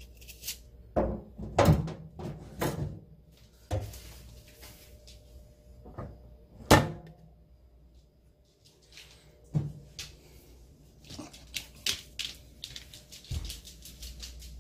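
Irregular sharp knocks and thuds from apple pieces being broken and handled over a stainless steel kitchen sink, the loudest about seven seconds in. Lighter, quicker clicks follow near the end.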